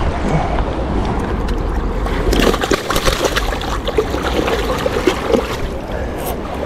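River water sloshing and lapping, with wind rumbling on the microphone and a few light clicks and knocks in the middle.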